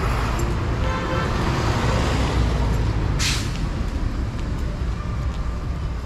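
City street traffic: a steady low rumble of passing cars, with a short hiss about three seconds in.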